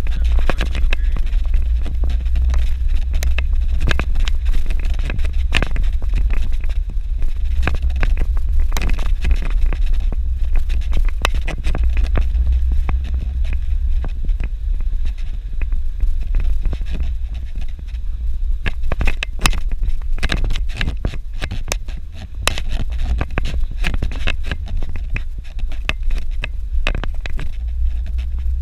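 A car driving on a rough dirt road: a steady low drone of engine and road, with many scattered knocks, clicks and rattles from the bumps.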